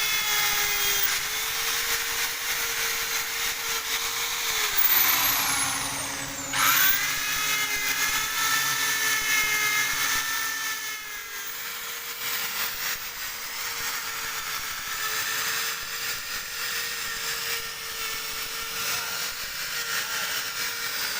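Electric drill spinning a wire brush against a metal engine block, scrubbing off dirt and rust: a steady motor whine over a harsh scraping hiss. The motor's pitch dips several times as the brush is pressed in, then picks back up.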